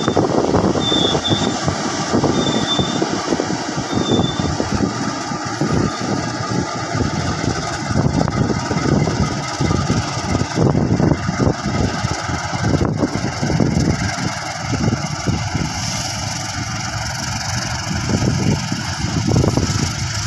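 A freight train passing close by: a KAI CC 206 diesel-electric locomotive's engine runs as it pulls away, while flatcars rumble past on the rails with repeated knocks of the wheels over the track.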